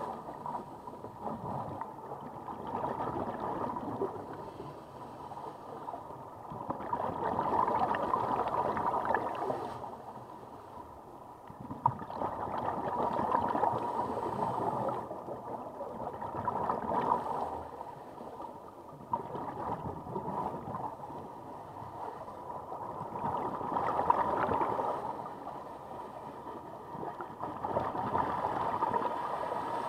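Scuba divers breathing through their regulators underwater: bursts of exhaled bubbles gurgling and rushing, swelling and fading every four to five seconds with the breaths.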